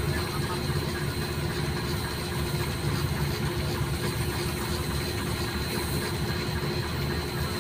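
Heavy diesel engine idling steadily: an even low rumble with a faint steady whine above it.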